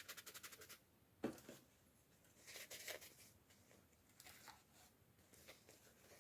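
Quiet handling of toy packaging: a quick run of small ticks in the first second, a single knock, then a rustle and a few light taps.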